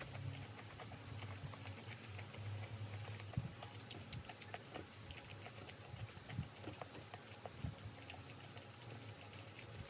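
Light, irregular clicks and taps of kitchen work, utensils or dishes being handled, over a steady low hum.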